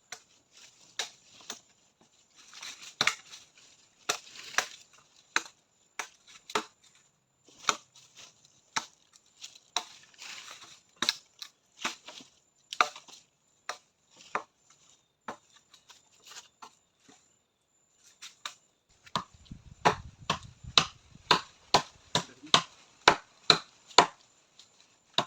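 Repeated sharp blows on wood, irregular at first, then a faster run of louder strikes about two a second near the end.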